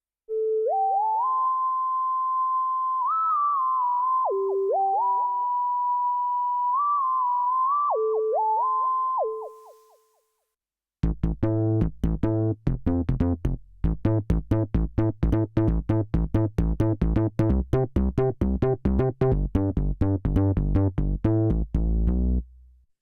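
Arturia MiniFreak synthesizer playing two presets: first a sustained lead line that glides up and down between notes, then, after a short gap, a fast, even sequence of short plucked notes over a low bass part.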